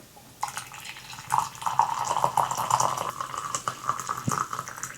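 Hot coffee being poured from a pot into a cup: a steady stream of liquid starting about half a second in and easing off near the end.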